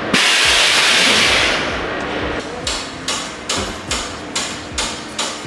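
Hammer blows in a race-car pit garage: a steady run of about nine sharp metal strikes, roughly three a second. Before them comes a loud burst of hiss lasting about a second and a half.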